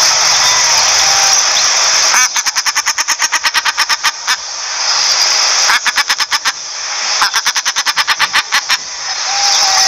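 Common shelduck calling in three runs of rapid, evenly spaced notes, about nine a second, over a steady hiss.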